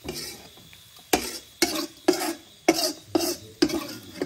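A spatula stirring and scraping food around a wok in short, even strokes, about two a second.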